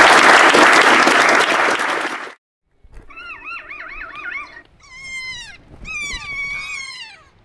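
Audience applauding, cutting off about two seconds in. After a brief silence a kea calls: a wavering call, then two drawn-out calls that fall in pitch.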